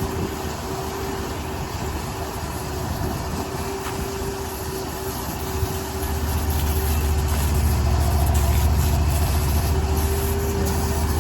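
An engine running steadily, with a constant hum that gets louder about six seconds in.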